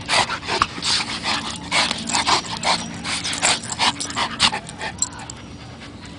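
Saint Bernard and border collie play-fighting with open jaws: a quick run of short, breathy huffs that dies down after about four and a half seconds.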